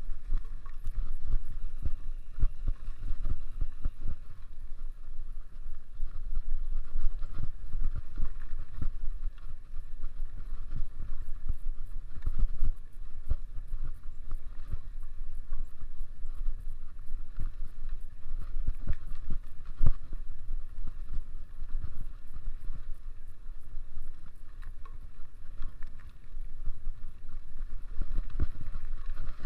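Mountain bike riding over rough trail, with many short knocks and rattles from the bike over bumps and wind buffeting the microphone.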